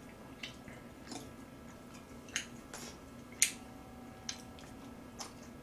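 A person chewing food with an open mouth, close to the microphone: scattered soft wet clicks and smacks, about seven in five seconds, over a faint steady hum.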